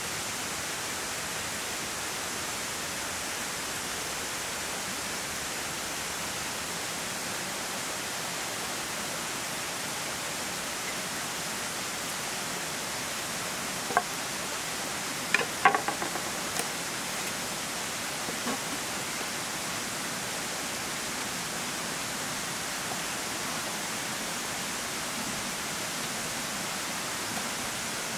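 Steady, even rushing hiss throughout, with a few sharp knocks about halfway through as a cleaver and chicken pieces are handled on a wooden cutting board.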